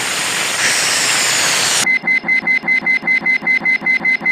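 Cartoon sound effects: a steady hiss for almost two seconds, then a rapid alarm-style beeping, about seven beeps a second, starting suddenly.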